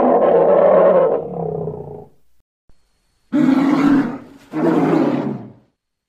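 Creature roar sound effects voicing a yeti-like cavewoman. One long roar tails off about two seconds in, then after a short pause come two shorter roars in quick succession.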